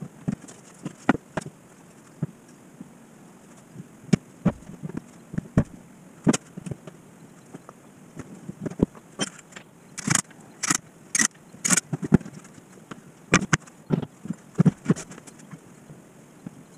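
Wooden frame parts knocking and clattering on a workbench while pine table frames are handled and fitted together. Near the middle comes a run of about five sharper strikes, roughly half a second apart.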